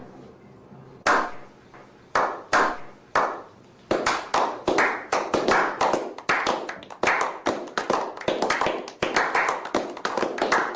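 Hand clapping: a few single, spaced claps, then quicker steady clapping from about four seconds in, each clap with a short echoing tail.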